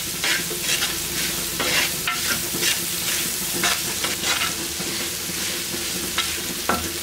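Small onions and spices sizzling in gingelly (sesame) oil in a pan, stirred with a metal spatula that scrapes across the pan in repeated strokes.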